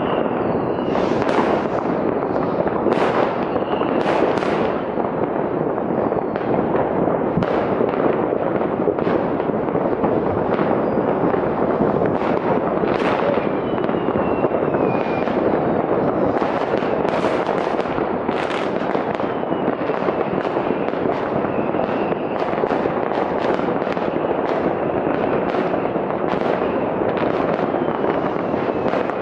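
Many distant fireworks and firecrackers going off at once, blending into a continuous crackling din. Frequent sharper bangs stand out from it, along with the thin whistle of a rocket now and then.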